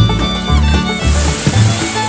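Bluegrass-style music with fiddle and banjo over a pulsing bass line. A high hiss comes in about halfway through.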